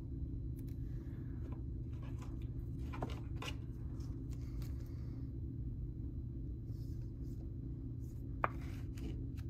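Trading cards being handled, with a few faint rustles and soft clicks, over a steady low hum.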